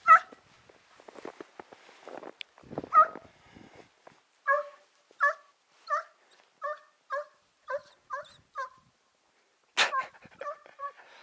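A hunting hound giving tongue on a hare's scent: a regular run of about nine short yelping barks, roughly two a second, through the middle, with a few louder single yelps before it and one near the end.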